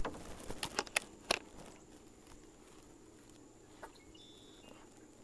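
Camera gear being handled on a tripod: a quick cluster of sharp clicks and taps in the first second and a half, then near quiet with one small click and a faint short high tone about four seconds in.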